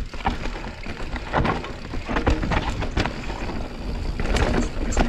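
Mountain bike descending a dirt trail at full speed: a steady rush of tyre and wind noise, broken by frequent sharp knocks and rattles from the bike.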